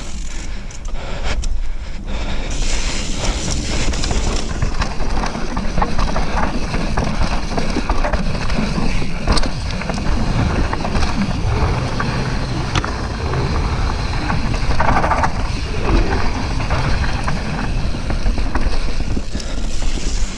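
Propain Tyee enduro mountain bike descending a dirt and gravel forest trail: tyres rolling and crunching over the surface, with steady rattles and knocks from the bike and wind rumbling on the microphone.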